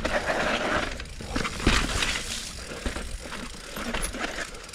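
Steel hardtail mountain bike (2020 Norco Torrent HT, 29er) running down a rough, rocky trail: tyres rolling over dirt and rock, with the chain and frame rattling and repeated sharp knocks as the unsuspended rear end hits bumps.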